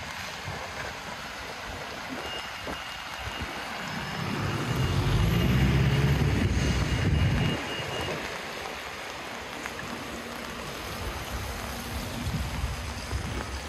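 Steady rain hiss and wet-road noise, with a motor vehicle passing close by: its engine and tyres swell about four seconds in and fade out by about seven and a half seconds.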